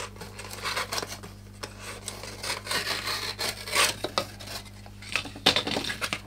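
Sharp knife cutting through foam board: irregular scratchy, rasping strokes.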